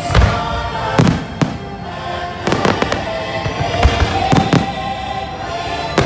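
Fireworks shells bursting in an irregular string of sharp bangs, about a dozen in six seconds, over music playing steadily underneath.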